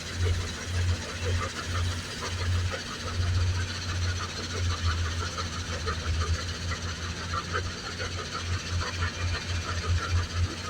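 Heavy machinery running at a rock crusher: a low engine drone that pulses unevenly under constant clatter and rattling.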